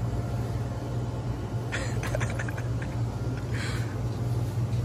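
A car engine running at a steady low drone, with no revving. Two brief soft hissy rustles come about two seconds and three and a half seconds in.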